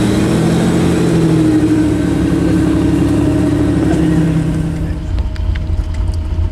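Toyota 4Runner's engine running under load as it crawls past through deep snow, its pitch swelling and then slowly easing down. About five seconds in, a lower, rougher engine rumble takes over.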